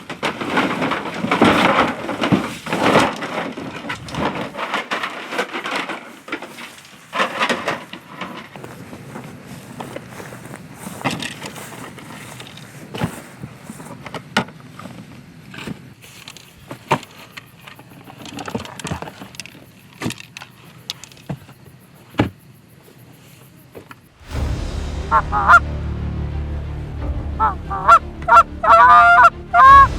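Scattered knocks and clicks, then about 24 s in background music with a heavy bass starts, and loud, wavering Canada goose honks ring out over it several times.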